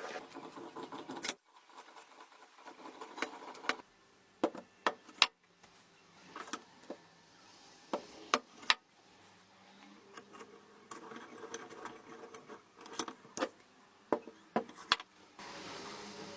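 Hard metal parts clinking and knocking in a string of sharp, separate clicks at irregular intervals, with a few louder strikes in the middle.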